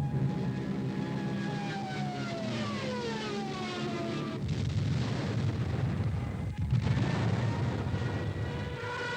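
Aircraft engine drone that falls steadily in pitch over a few seconds, as in a fly-past, then gives way to a rougher low rumble. Near the end a steady whine starts.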